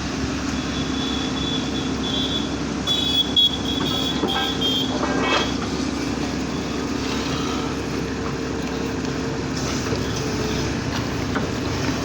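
Engine of an earth drilling machine running steadily, with a steady low hum throughout. A faint high whine comes and goes between about one and five seconds in.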